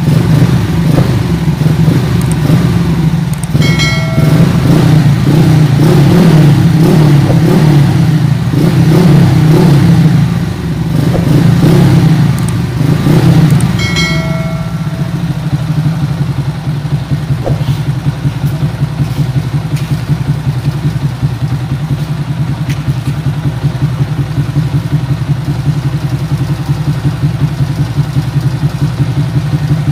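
Yamaha Sniper MX135 single-cylinder four-stroke engine, bored out to 177cc and breathing through an aftermarket Kalkal exhaust pipe, being revved with repeated throttle blips. About halfway through it settles to a steady, evenly pulsing idle.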